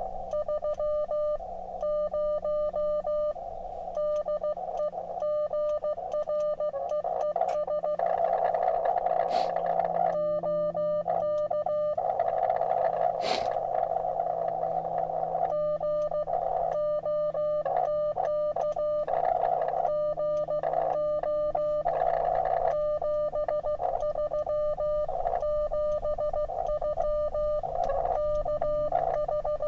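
Morse code (CW) from a ham radio transceiver: a steady beep keyed on and off in dots and dashes, with receiver hiss between the characters. The message is a sign-off ('73', 'SK') closing a contact.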